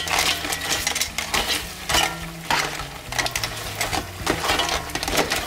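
Metal tongs tossing snow crab legs and potatoes in Cajun butter sauce in a stainless steel pot: hard shells clack against the pot and the tongs in an irregular run of clicks, with wet stirring.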